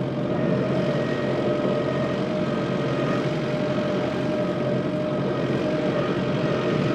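Kubota skid steer's diesel engine running steadily under work while cleaning out a cattle shed with the bucket, with a steady whine over the engine note.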